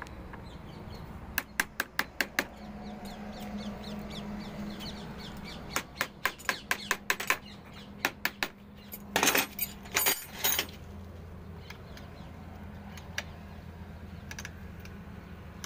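Steel spanner and pliers clinking and scraping on the lead terminal clamps of a truck battery: three runs of quick metallic clicks, the last with rasping scrapes. A steady low hum continues underneath.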